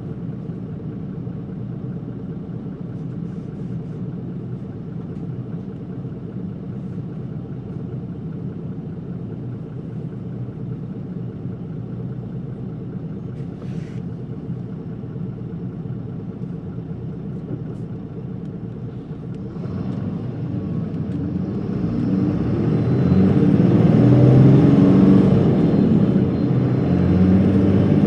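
Isuzu Erga city bus (PKG-LV234L2) and its six-cylinder diesel engine heard from inside the cabin: a steady low drone for about twenty seconds, then growing clearly louder and staying loud to the end.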